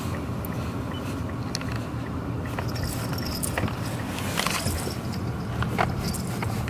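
Steady road and engine noise inside a moving car's cabin, with scattered light clicks and rattles.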